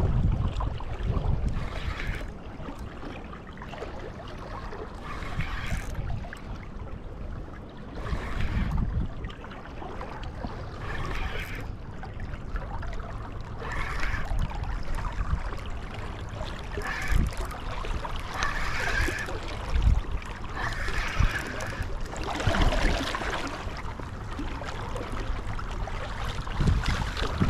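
River water flowing, with gusts of wind buffeting the microphone.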